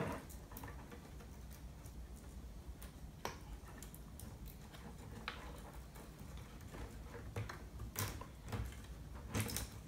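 Faint handling noise: light rustling and scattered small clicks as electrical wires are threaded through a 3D-printed plastic part, with a few sharper clicks, the clearest about eight seconds in.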